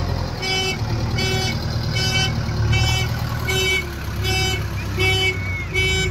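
JCB 3DX backhoe loader's diesel engine running under load, with its reversing alarm beeping steadily about twice a second as the machine backs over the ground with its bucket.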